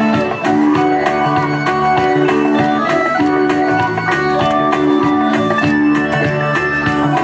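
Live band music: an electric guitar playing over a steady drum beat, with held keyboard-like notes underneath.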